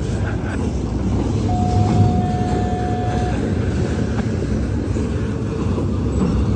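Double-stack intermodal freight cars rolling past, a steady rumble of steel wheels on the rails. About a second and a half in, a thin steady whine rises above the rumble for about two seconds.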